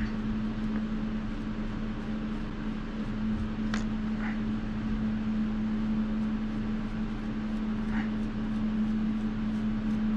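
Steady low machine hum, even throughout, with a few faint light ticks about four and eight seconds in.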